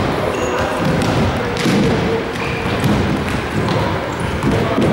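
Futsal ball being kicked and bouncing with dull thuds on a wooden sports-hall floor, among players' running steps and shouts, all echoing in the large hall.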